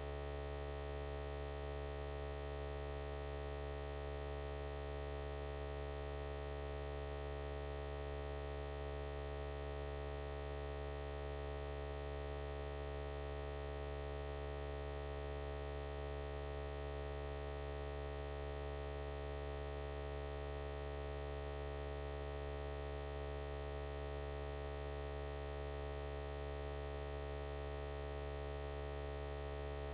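A steady, unchanging electrical hum made of several fixed tones, deepest and strongest at the bottom, with no other sound.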